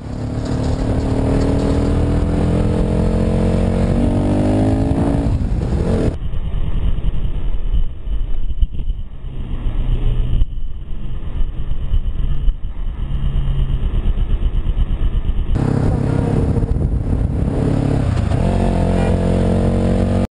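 Motorcycle engine heard from on board the bike, with its pitch rising as it accelerates, several times over. The sound changes abruptly about six seconds in and again near the end.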